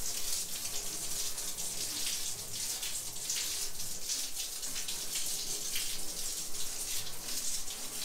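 Handheld shower sprayer running a steady, low-pressure jet of water onto the mesh of an LG inverter air conditioner's plastic air filter, rinsing the caked dust out of it: an even, steady hiss of spray.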